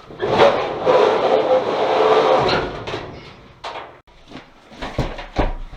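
Sheet-metal dryer parts scraping and rubbing loudly for a couple of seconds, then several sharp knocks, as the dryer's drum and cabinet are handled during disassembly.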